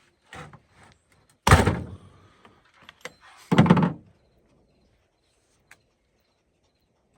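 Two heavy thunks about two seconds apart, with a lighter knock before them: the Stihl chainsaw and its combination wrench being handled as the old spark plug comes out.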